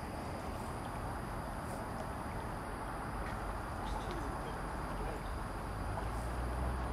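Steady night-time outdoor ambience: an even rushing noise with a low rumble that grows a little stronger near the end, and a few faint clicks.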